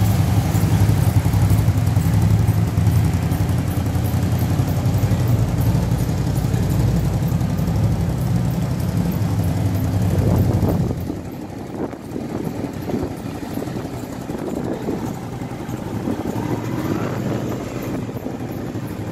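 Large motorcycle engine running at low speed close by, a steady deep rumble. About eleven seconds in it drops away sharply as the bike rides off, leaving fainter engine sound.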